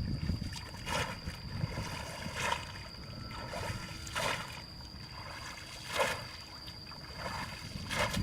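Water splashing in an even rhythm, about one stroke every 1.7 seconds, like an oar or paddle working through water, over a steady high tone.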